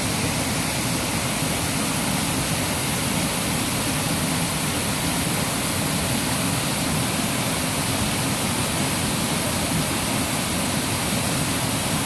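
Waterfall cascading over several rock ledges into a pool, a steady, unbroken rush of falling water.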